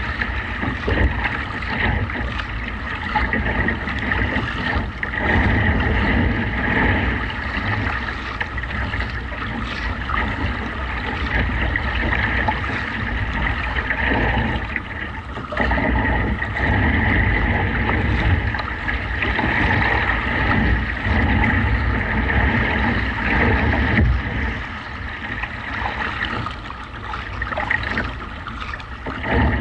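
Strong gusty wind buffeting the microphone over the steady splash and slap of choppy waves against a kayak's hull, with the splashes of paddle strokes. The level rises and falls with the gusts.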